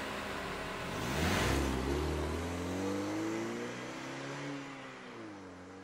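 Car engine accelerating as the car pulls away, rising in pitch about a second in and dropping again near the end, growing fainter.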